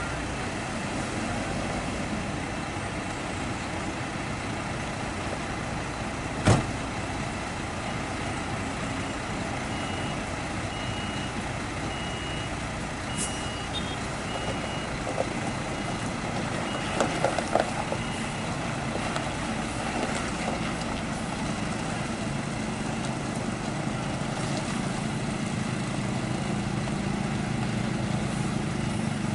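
Diesel engines of UD Quester tank trucks running as they work up a muddy slope, the engine sound growing louder near the end as a truck comes closer. A single sharp knock about six seconds in, faint evenly spaced beeps in the middle, and a few knocks a little later.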